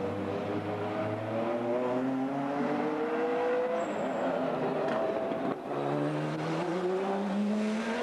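Lister Storm GT race car's Jaguar-derived V12, straight-piped, running hard under acceleration: a loud engine note that climbs in pitch, drops back about four seconds in and again about five and a half seconds in, and climbs again each time.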